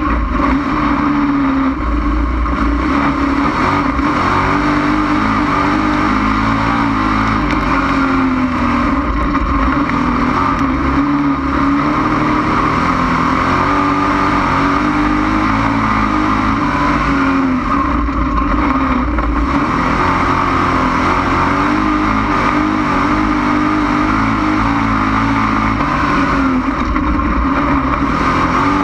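Dirt-track race car's engine at racing throttle, heard from inside the car, its note rising and falling as the driver lifts and gets back on the throttle through the turns.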